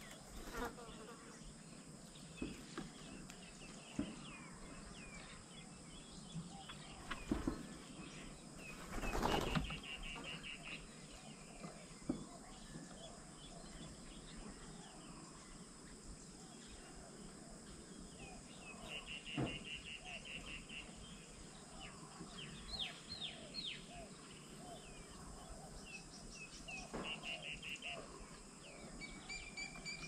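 Wild birds calling around a feeding table: scattered chirps and several quick trilled runs of repeated notes, over a steady high insect hum. There is a brief loud rustle about nine seconds in.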